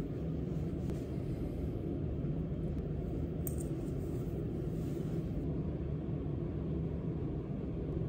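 Steady low rumble of room tone, with a few faint soft handling ticks as hands tie a silk scarf.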